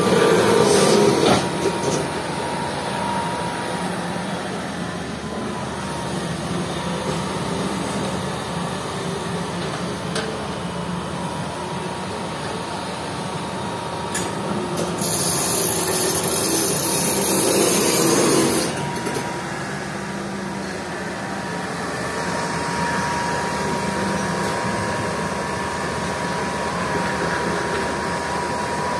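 Hitachi EX200 excavator's diesel engine running steadily with a hydraulic whine. A rush of sand and gravel poured from the bucket is heard right at the start and again for a few seconds around the middle.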